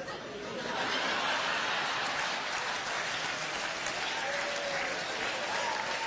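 Audience applauding, the clapping swelling about a second in and then holding steady.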